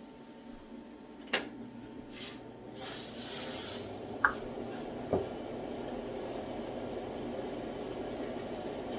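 Kitchen handling sounds: a knock about a second and a half in, then a hiss of cooking spray on a pan lasting about a second, followed by a light clink and a tap, over a steady low hum.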